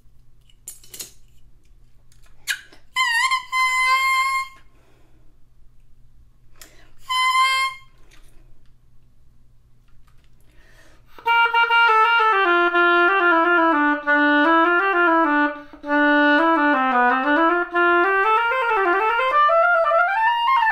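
A double-reed oboe reed crowing twice on its own, two short high pitched tones, then played in an oboe: a run of slurred notes rising and falling for the last nine seconds or so. The reed's response is still not forthcoming, which the reedmaker puts down to the corners of the tip.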